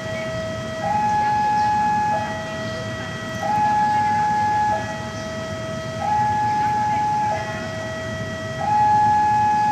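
Railway level-crossing warning alarm: an electronic two-tone signal that alternates steadily between a higher and a lower note, each held a little over a second, over a low background rumble.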